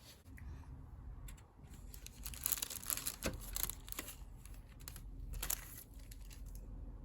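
Wrapping crinkling and tearing in short bursts, loudest in a run of crackles about two to four seconds in and again briefly around five and a half seconds.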